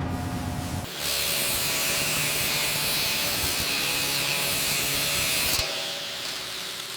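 A steady high-pitched hiss with a buzz under it, starting about a second in and cutting off suddenly about five and a half seconds in.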